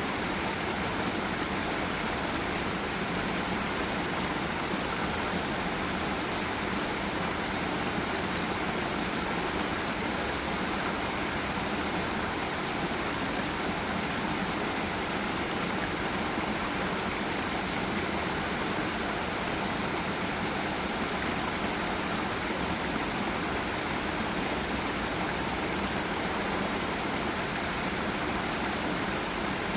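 Steady rush of flowing water in a forest river, an even hiss-like roar with little low rumble that does not change.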